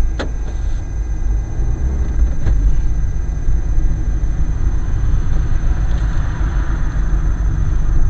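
Low, steady rumble of a vehicle's engine and tyres heard from inside the cab while driving, with two sharp clicks, one right at the start and one about two and a half seconds in.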